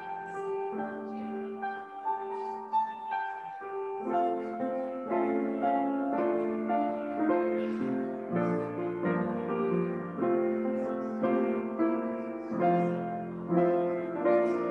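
Grand piano played solo. The playing grows fuller about four seconds in, with more notes sounding together.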